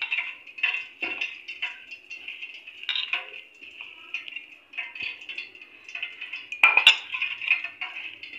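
A hand mixing and kneading a soft dough in a metal bowl: irregular soft clinks and knocks of hand and bangle against the bowl, with a louder clatter about two-thirds of the way through.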